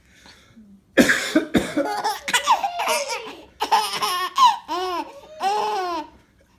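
A man coughs about a second in, and a baby answers with a run of high-pitched belly laughs in several rising-and-falling peals that stop shortly before the end.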